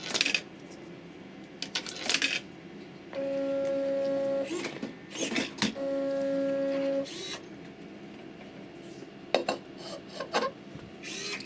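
A coin clatters through a coin acceptor. Then a stepper motor driving a carriage along a belt and rail whines at one steady pitch for about a second and a half, twice, with clicks and a clunk between the two runs. Near the end come a few knocks as the can is handled.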